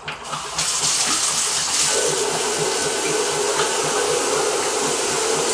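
Handheld shower head spraying water into a plastic bucket to refill it, a steady hiss that starts about half a second in, with a steady tone joining about two seconds in.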